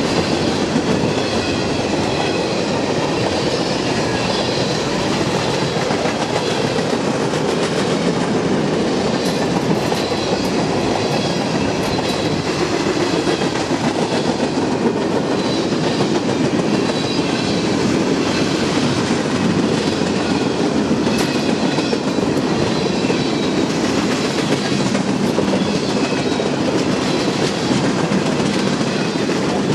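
Freight train cars (gondolas, tank cars and flatcars) rolling past at track speed: a steady rumble of steel wheels on rail with an occasional click.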